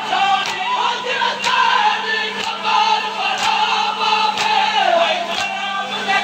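Noha, a Shia lament, sung live by a male voice with a crowd of mourners singing along, over a sharp strike about once a second from their matam (rhythmic chest beating).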